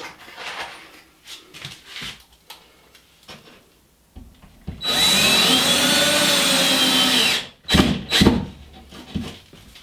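Power drill driving a screw to fix a backing strip to the existing sheetrock: one run of about two and a half seconds, the motor pitch rising, holding and dropping as it stops. Two sharp knocks follow soon after, with light handling clicks before.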